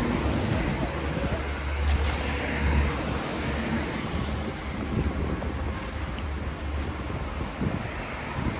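Steady road traffic noise with a constant low rumble.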